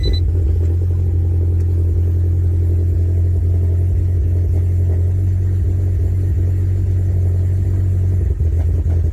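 Mazdaspeed3's turbocharged 2.3-litre four-cylinder engine idling steadily.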